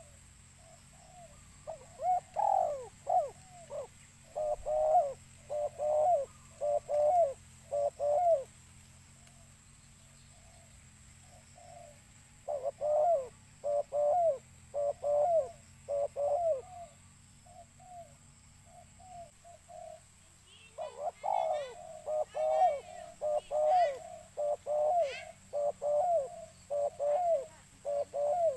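Spotted dove (tekukur) cooing in three runs of repeated coo notes separated by pauses of a few seconds. A few higher, quick chirps from a small bird sound over the last run.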